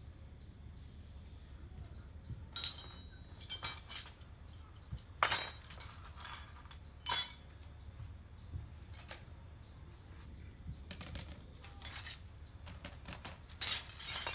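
Metal hand tools clinking and clattering against each other and the concrete as they are handled: about a dozen sharp clinks in irregular clusters, loudest about five and seven seconds in and near the end.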